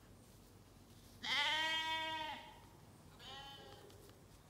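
Zwartbles sheep bleating twice: a long, loud baa about a second in, then a shorter, fainter one. It is the call of a sheep that has strayed to the wrong side of the fence, away from its flock.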